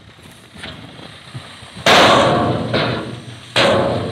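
Two loud bangs from a tipper truck's raised steel dump body and swinging tailgate as the load of soil lets go, about a second and a half apart, each dying away over a second or so as the soil pours out.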